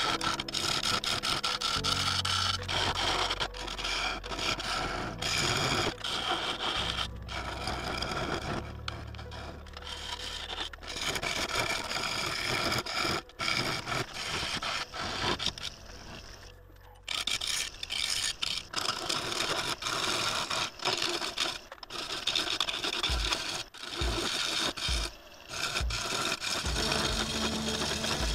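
Wood lathe spinning a claret ash bowl blank while a turning tool scrapes and rubs across the wood in repeated passes, with short breaks where the tool lifts off. The lathe motor hums low underneath.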